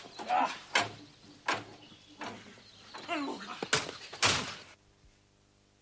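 Men's short shouts and grunts mixed with several sharp knocks or thuds during a scuffle and chase, cutting off suddenly near the end.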